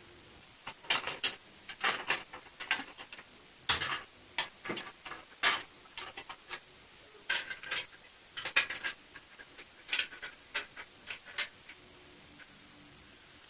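Plastic model kit parts being handled: irregular clicks, taps and rustles of hard plastic pieces, with the sharpest knocks a little under 4 s in, at about 5.5 s and around 8.5 s.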